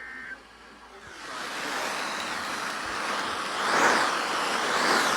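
A short beep, then the road noise of a car driving, a steady rushing hiss that builds after about a second and swells twice near the end.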